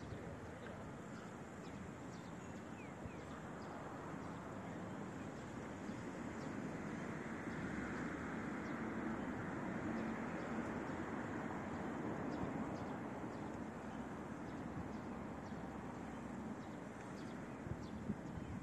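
Road traffic: a steady wash of noise that slowly swells to a peak about halfway through and then eases off again, as of vehicles passing.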